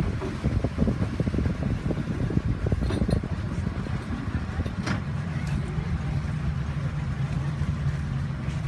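Speedboat engine running at low speed, with wind rumbling on the microphone; from about four seconds in a steadier low engine hum comes through.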